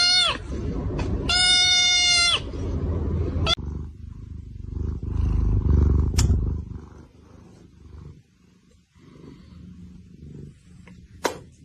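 A cat giving two long, level meows, the second starting about a second after the first ends, each dropping in pitch as it ends, over a low rumble that fades out about seven seconds in. Then only faint scattered sounds, with a sharp click near the end.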